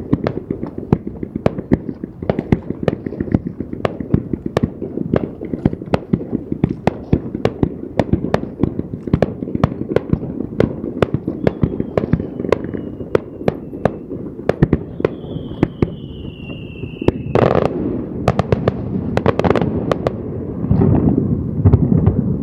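Fireworks display: a rapid, continuous run of crackling and popping shell bursts, with a high whistle falling slightly in pitch about fifteen seconds in. Louder, fuller bursts follow near the end.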